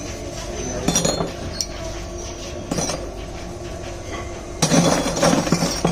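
Cast brass diyas clinking against one another as they are picked up and dropped onto a pile: single clinks about a second in and near three seconds, then a quick run of clinks near the end. A steady hum runs underneath.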